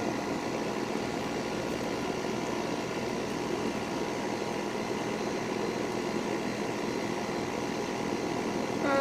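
Rooftop packaged air-conditioning units running: a steady whir of condenser fans and compressors, with a constant hum of several fixed tones.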